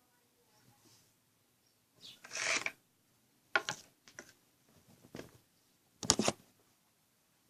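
Close handling noises: a short rustle about two seconds in, then several sharp clicks and snaps spaced a second or so apart.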